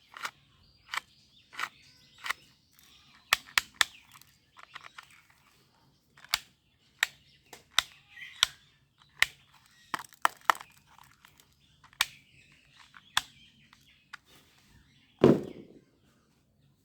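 Toy guns being handled: a series of sharp clicks and snaps at irregular intervals, with a louder knock about fifteen seconds in.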